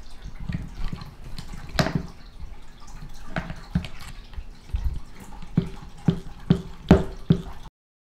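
Irregular clicks and light metallic knocks as a copper lug is set back into a hydraulic lug crimper's die for a second crimp. Near the end a quicker run of sharper, ringing clicks comes about twice a second, then the sound cuts off suddenly.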